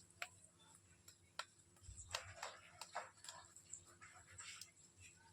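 Faint, irregular clicks and taps, with soft rustling scrapes about two seconds in and again near four and a half seconds.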